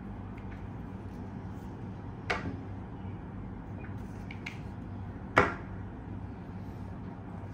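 Two sharp clicks as small camera accessories are handled, one a couple of seconds in and a louder one about five seconds in, with a few faint ticks between them over a steady low hum.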